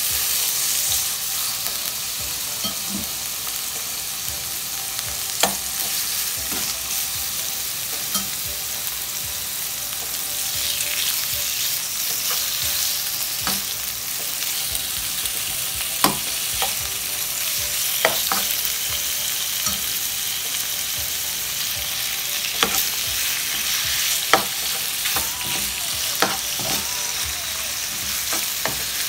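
Marinated pork strips sizzling in hot oil in a nonstick frying pan. Scattered sharp clicks come from metal tongs striking the pan as the strips are turned and more are added.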